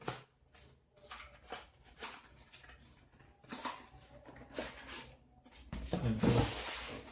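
Handling noise from a power cable being taken out and moved about: a string of short rustles and clicks, then a louder rustle with a low thump about six seconds in.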